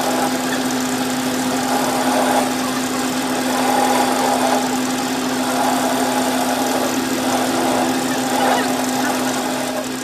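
A machine running steadily with a constant hum and a dense, even noise over it.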